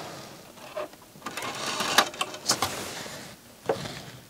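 Sony MDS-JE510 MiniDisc deck's loading mechanism taking in a disc: a small motor whirs for about two seconds, with several clicks from the mechanism.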